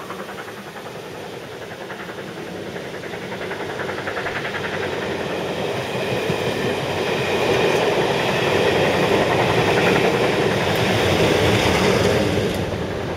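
A train of passenger coaches rolling past on the rails, a steady rumble with wheel clatter. It grows louder through the middle and drops off near the end.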